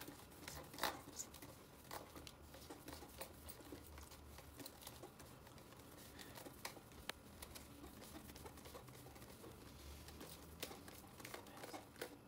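Faint scattered plastic clicks and rustles as a flexible LED neon strip is wound tightly by hand around a plastic pipe, with a sharper click about a second in.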